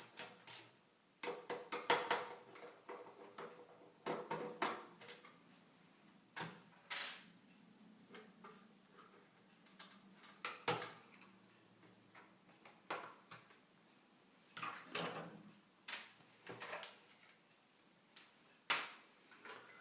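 Scattered clicks, light knocks and brief rattles from hands handling the internal parts of a PlayStation 3 console being taken apart, as the wireless board is lifted out.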